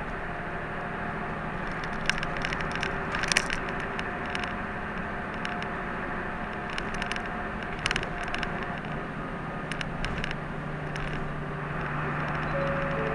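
Inside a route bus under way: steady engine hum and road noise, with scattered rattling clicks from the cabin, sharpest about three seconds in and again near eight seconds.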